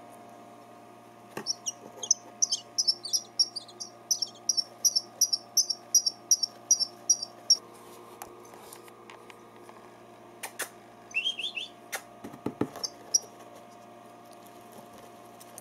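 Nestling birds, taken for starlings by their keeper, giving rapid high begging chirps at about three a second as they are fed grasshoppers. The chirping stops about halfway through for a few sharp knocks and a brief lower chirp run, and starts again at the very end.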